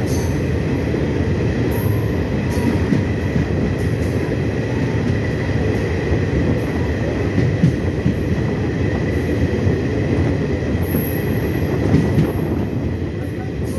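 Passenger train running through a railway tunnel, heard from the open coach doorway: a dense, steady rumble of wheels on rail with brief high squeals now and then. Near the end the train leaves the tunnel and the noise eases slightly.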